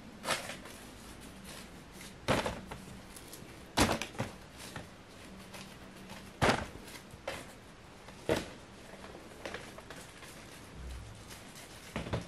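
Plastic air-cushion packaging crinkling in a string of short, sharp rustles one to three seconds apart, the loudest about four seconds in.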